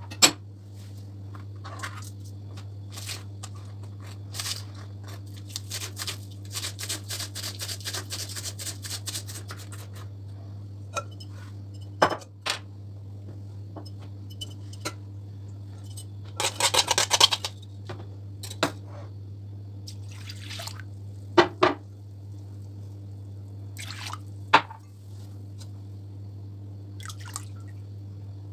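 Kitchen prep sounds over a steady low hum: a quick run of knife taps chopping green onions on a plastic cutting board, then scattered knocks and clinks of glassware and a glass bowl, a short burst of rapid rattling, and liquids poured into the bowl.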